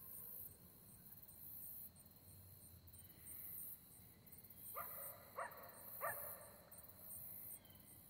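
Faint background chorus of katydids and crickets, a high, pulsing buzz. Midway through come three short faint calls about half a second apart.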